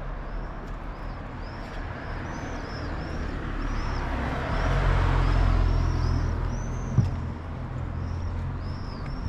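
A motor vehicle passes close by on the street. Its low engine hum and road noise swell to a peak about halfway through, then ease off. There is a sharp knock about seven seconds in.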